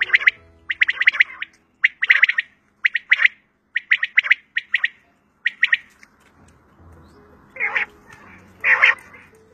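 Quail (batair) calling over and over in short, clipped notes grouped in quick twos and threes, about one group a second. The calls pause for a moment about five seconds in, and two longer, harsher calls come near the end.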